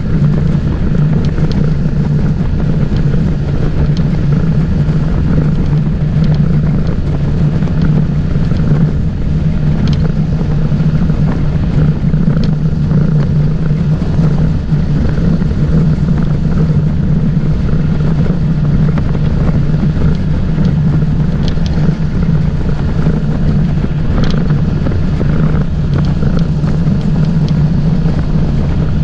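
Motorboat's engine running steadily under way, with wind buffeting the microphone.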